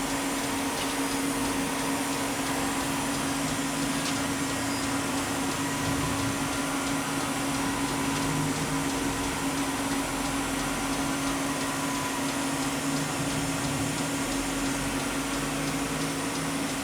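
Haas HS-1 CNC horizontal machining center running with a steady hum and whir while its Y axis moves to its home position.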